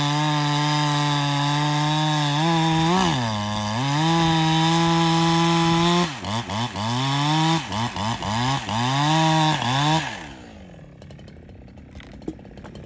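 Chinese-made Husqvarna 372 clone, a two-stroke chainsaw, running at full throttle through almond wood, its pitch sagging briefly about three seconds in. From about six seconds the revs swing up and down in a run of quick blips, then drop to idle near the end. The owner suspects the chain was biting too much because its rakers were filed down.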